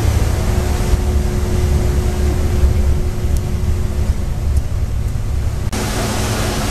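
Staten Island Ferry underway: a steady low rumble with an engine hum. Near the end it changes abruptly to a brighter rush of churning wake water and wind.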